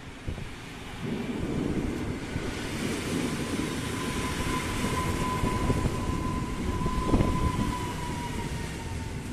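Polregio regional passenger train running into the station and slowing past close by: wheels rumbling on the rails, with a thin, steady squeal from the brakes that sags slightly in pitch as it slows, and a single knock about seven seconds in.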